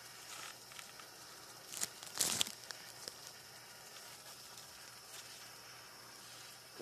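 Blowtorch flame hissing steadily while a copper pipe joint is soldered, with a brief loud rustle about two seconds in.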